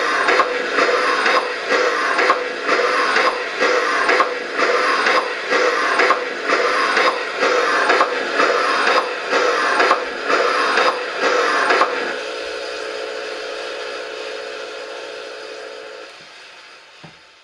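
Zimo sound decoder with the Henning sound project for HSB 99 222, playing the steam exhaust beats of the Harz 2-10-2T tank engine through the LGB model's speaker, about three beats every two seconds. About twelve seconds in the beats stop, leaving a steady hiss with a held tone that fades out.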